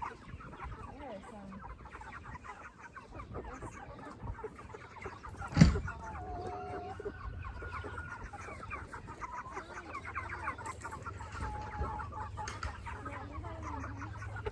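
Flock of Cornish Cross broiler chickens clucking and peeping continuously, with one sharp knock about five and a half seconds in and a low steady rumble coming in near the end.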